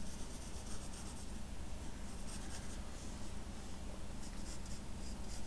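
A drawing tool scratching across paper in a run of short strokes, over a steady low hum.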